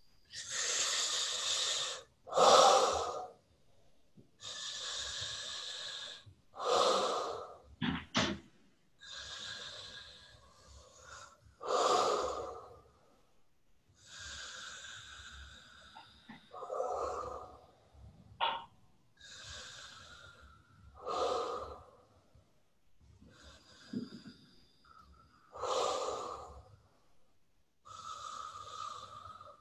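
A woman breathing hard and deep into palms pressed over her nose and mouth, in a powerful full-inhale, full-exhale breathing exercise. Long hissing breaths alternate with shorter, louder ones, about one full breath every four to five seconds.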